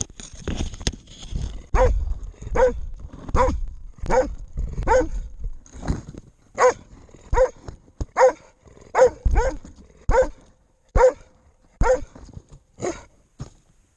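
Hunting dog barking steadily and repeatedly, about one bark a second, close to the microphone, with a low rumble under the first few seconds.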